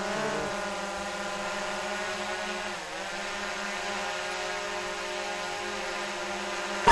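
Multirotor camera drone hovering, its motors and propellers giving a steady whirring hum that dips briefly in pitch about three seconds in.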